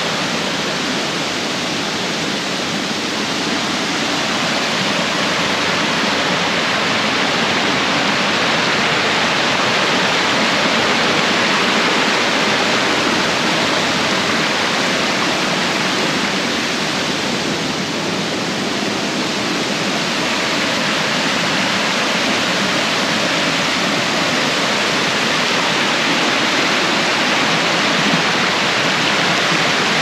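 Rushing water of a rocky mountain stream: a steady, loud hiss of rapids.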